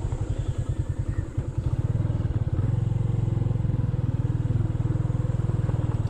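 Motorcycle engine running at low speed: a steady, rapid low puttering of firing pulses that grows a little louder about a second and a half in.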